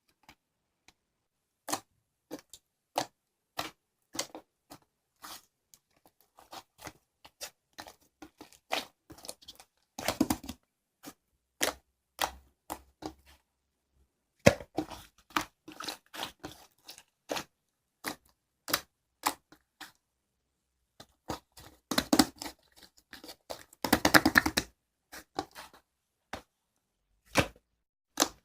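Irregular sharp clicks and taps, one every half second to a second, with short dense crackling flurries about ten seconds in and twice more past the twenty-second mark.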